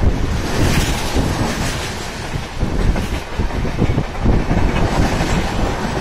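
Express train's passenger coaches passing close by at speed: a steady rumble and rush of steel wheels on the rails, with quick clatter as the wheels cross rail joints.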